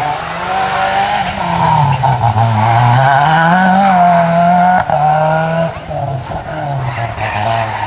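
Rally car engine revving hard through a corner, its pitch falling and rising with the throttle, cutting briefly about five seconds in, then running on lower and quieter as the car pulls away.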